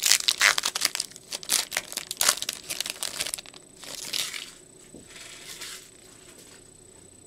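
Bowman baseball card pack wrapper crinkling and tearing as it is ripped open by hand, a dense run of crackles for the first three seconds or so, then a shorter crinkle about four seconds in as the wrapper is tossed aside.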